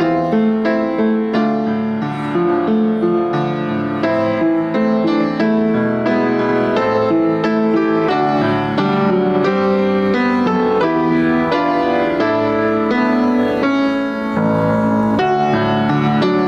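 Piano music, an unbroken flow of notes and chords at an even level.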